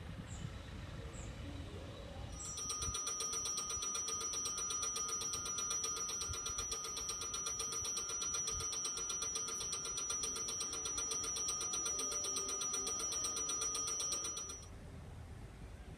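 Railway level-crossing warning bell ringing in a fast, even pulse with a high, bright tone. It starts a couple of seconds in and cuts off suddenly near the end.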